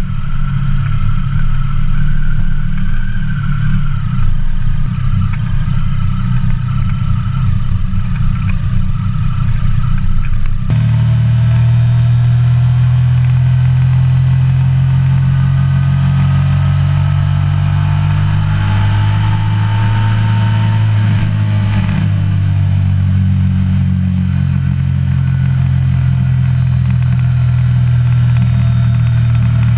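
Triumph Sprint ST 1050's three-cylinder engine running under way, heard from the rider's seat. At first it moves at low speed; then, after an abrupt change about a third of the way in, it cruises with a steady drone that dips and rises slightly in pitch a little past the middle.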